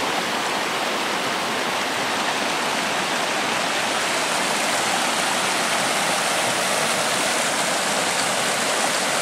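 Creek water rushing steadily, a continuous even wash of noise.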